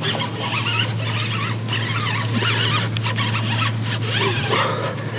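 Shimano Tranx 500 baitcasting reel cranked steadily on a fast swimbait retrieve, giving a steady low gear drone that stops near the end. High squeaky chirps sound over it throughout.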